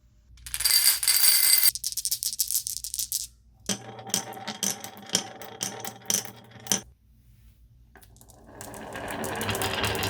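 Marbles clattering and clicking as they roll down a wooden marble run, in several bursts with short pauses: a loud rush of rattling near the start, a quick run of clicks in the middle, and a fuller clatter that swells near the end.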